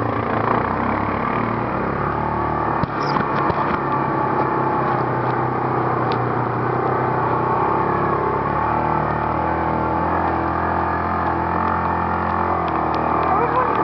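Side-by-side UTV engine running steadily as it drives along a dirt trail, heard from inside the open cab, its pitch shifting a little about two-thirds of the way through. A few sharp clicks and knocks from the ride over rough ground.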